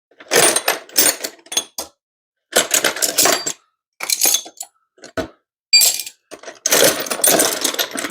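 Metal hand tools clattering and clinking in several bursts with short pauses, as they are rummaged through in a metal ammo box.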